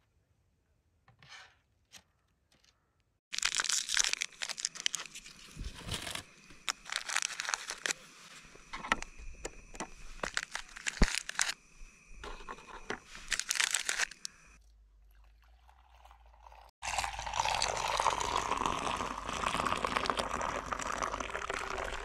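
Crinkling and crunching as biscuits are unwrapped and laid out on a wooden board, a dense run of crackles lasting about ten seconds. Then, after a sudden cut, a steady pour of milky tea from a small pot into a steel mug.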